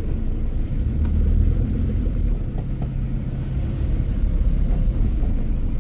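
Car driving, a steady low road and engine rumble heard from inside the cabin.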